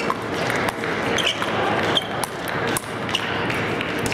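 Murmur of a crowd in a large hall, with frequent sharp knocks and taps and a few brief high pings.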